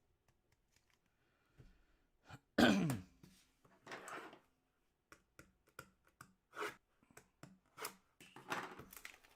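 A man clearing his throat once, a short sound falling in pitch, then a breathy burst and a run of light clicks and rustles from trading cards and pack wrappers being handled.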